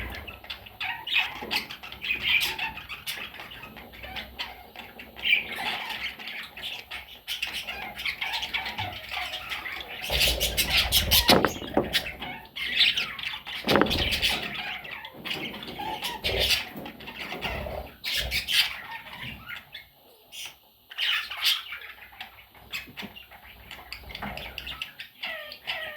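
Budgerigars chattering and squawking continuously in quick, busy chirps, with scattered clicks. A louder noisy flurry comes about ten seconds in.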